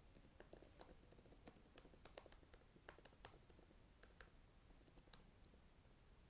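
Faint typing on a computer keyboard: irregular single keystroke clicks, a few per second.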